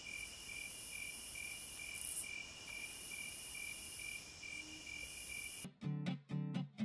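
Online poker client's card-squeeze suspense sound effect: a high chirp pulsing about two and a half times a second over a faint hiss. It cuts off near the end, as the river card is revealed.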